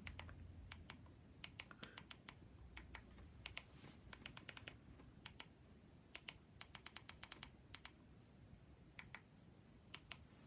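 Faint, irregular clicking of keys pressed in quick runs, typing in a search.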